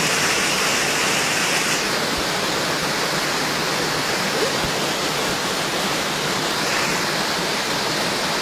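Jungle waterfall rushing, a steady, full wash of falling water; its upper hiss drops a little about two seconds in.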